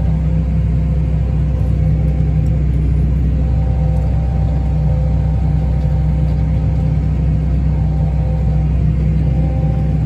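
Harvest machine's diesel engine and drive running steadily, heard from inside the cab as a deep rumble, with a faint whine coming and going above it.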